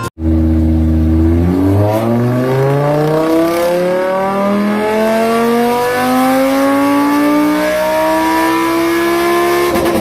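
Car engine sound effect: a low steady drone for about a second and a half, then one long, smooth rise in engine pitch as it accelerates, lasting about eight seconds before cutting off.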